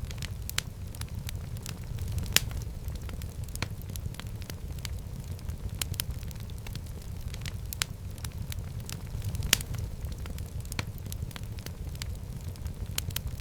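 Wood fire burning in a fireplace: a steady low rumble of flames with irregular sharp crackles and pops, the loudest a little after two seconds and near ten seconds.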